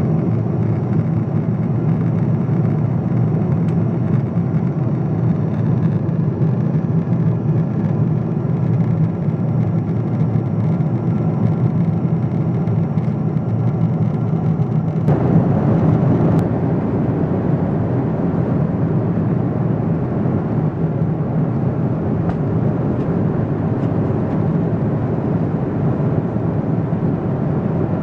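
Steady in-cabin drone of a Boeing 777-200ER in cruise: GE90 engine noise and airflow rush heard from inside the passenger cabin. About halfway through, the noise changes suddenly to a brighter, fuller rush.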